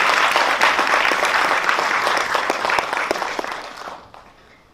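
Audience applauding at the end of a spoken-word performance: dense clapping that thins out and fades away about three to four seconds in.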